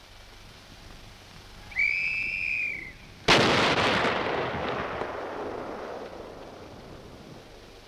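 A single warning whistle blast of about a second, then, about three seconds in, the T30 heavy tank's 155 mm gun fires once: a sudden loud blast whose rumble fades away over several seconds.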